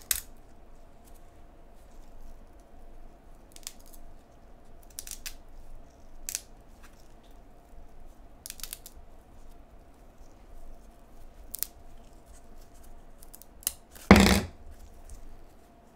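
Stack of 1981 Topps baseball cards being handled by gloved hands: scattered light clicks and rustles of card stock sliding against card, with one louder scrape about fourteen seconds in. A faint steady hum lies underneath.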